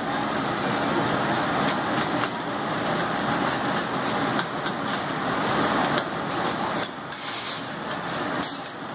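Steady, loud rush of commercial kitchen machinery, with faint short clicks and scrapes of a pizza wheel rolling through the crust along a metal slicing guide.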